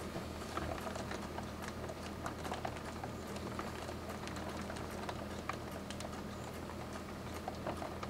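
Raindrops tapping irregularly on a hard surface close by, over a steady hiss of rain, with a low steady hum underneath.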